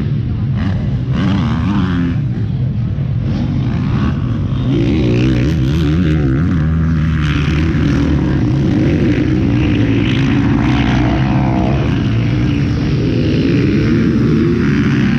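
Several motocross bikes' engines revving as they ride the dirt track. The engines overlap, their pitch rising and falling with the throttle, and they grow louder about five seconds in.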